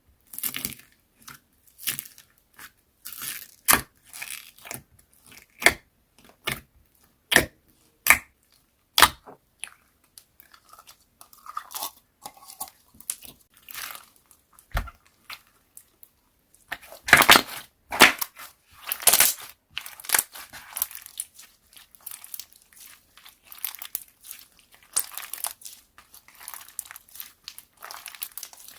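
Slime being squeezed and stretched by hand, giving irregular sharp clicks, pops and crackles with short quiet gaps, thickest in a dense run about two-thirds of the way through.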